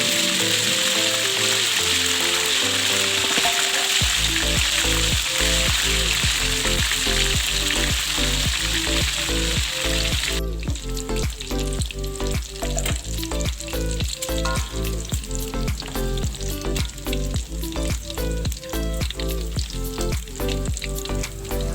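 Food sizzling as it fries in hot oil, cutting off abruptly about halfway through, over background music with a steady beat.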